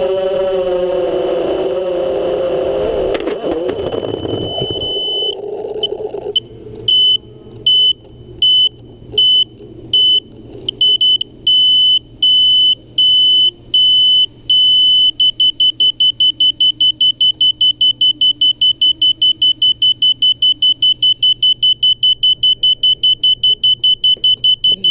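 FPV racing quadcopter's motors and propellers buzzing at a wavering pitch, cut short by a knock about three seconds in as the quad comes down. Then its onboard buzzer sounds a high beep, first in separate beeps under a second apart, then from about fifteen seconds in a fast steady beeping about four times a second: the lost-model alarm of the downed quad.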